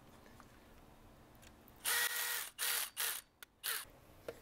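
Electric screwdriver running in four short bursts, starting about two seconds in, driving a screw into the printed blaster body.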